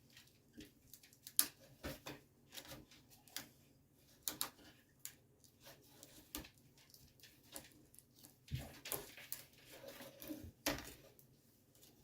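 Thin wooden screen molding being pried up off an old screen door a little at a time: scattered faint clicks, ticks and small creaks, a bit busier near the end as a piece comes loose.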